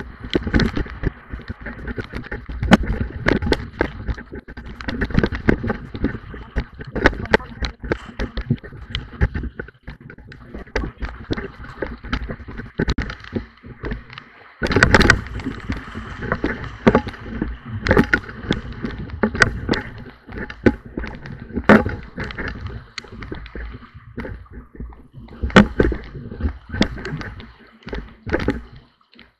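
Canoe running whitewater rapids: rushing, splashing river water close to the canoe, with many irregular knocks and splashes from paddle strokes and waves throughout.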